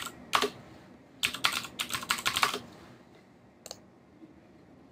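Computer keyboard keystrokes: one key press, then a quick run of about eight taps over a second and a half, then one more single press.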